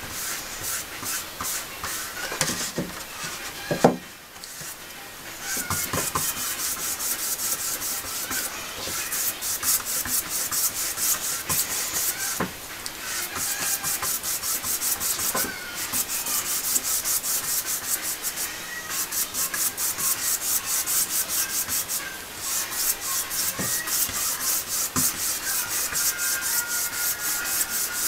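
Wide brush stroked rapidly back and forth over paper, the bristles scratching as they spread and smooth a pigmented gum bichromate coating. The brushing breaks off briefly twice, the first time just after a sharp knock about four seconds in.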